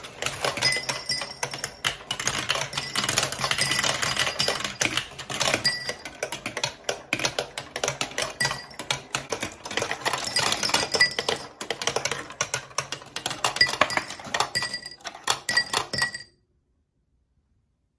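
Marbles rattling and clicking along a plastic marble run: a dense stream of clicks with short ringing clinks, which cuts off suddenly about sixteen seconds in.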